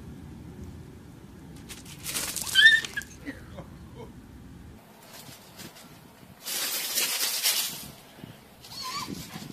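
Cat hissing at a dog: a sharp hiss with a brief yowl about two seconds in, a longer hiss lasting about a second past the middle, and a shorter hiss and yowl near the end. A low background rumble cuts off suddenly about five seconds in.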